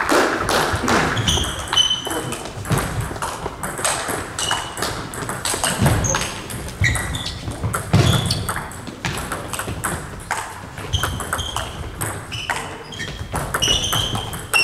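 Table tennis balls clicking off bats and tables, from this rally and the neighbouring tables, with frequent short high squeaks of shoes on the sports-hall floor.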